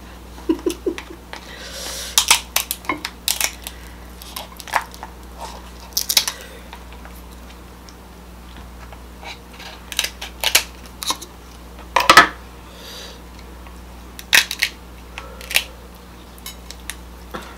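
Kitchen scissors snipping through the shell of a cooked king crab leg, and the shell cracking as it is cut and prised apart: a string of irregular sharp cracks and snips, the loudest about twelve seconds in.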